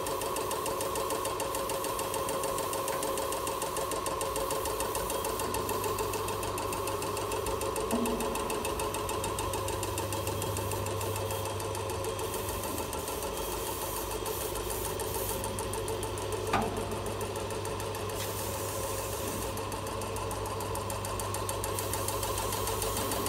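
A motor-driven machine running steadily with a fast rhythmic chatter over a low hum, and a single sharp knock about two-thirds of the way through.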